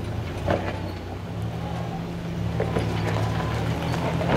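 Off-road vehicle engine running steadily at low revs, with a few short knocks.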